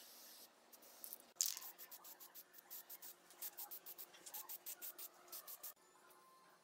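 Aerosol spray-paint can hissing in many short, rapid bursts, stopping near the end.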